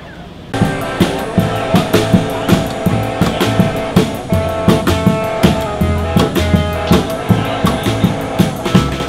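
A live street band of drum kit, electric guitar and upright double bass plays with a brisk, steady beat. It cuts in sharply about half a second in, over quiet street noise.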